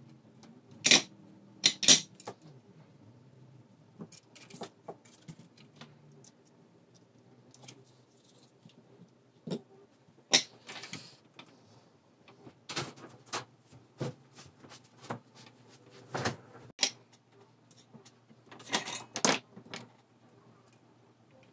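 Irregular sharp clicks and light metallic clatters from small soldering tools and wire being handled and set down around a circuit board. The two loudest come about a second in, and a quick cluster follows near the end.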